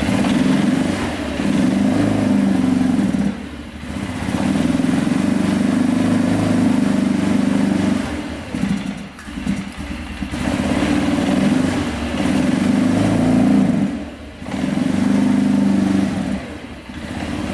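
2006 Arctic Cat 400 ATV's single-cylinder four-stroke engine running rough and boggy, its sound swelling and sagging about four times. A bog that the owner takes for a carburetor in need of cleaning.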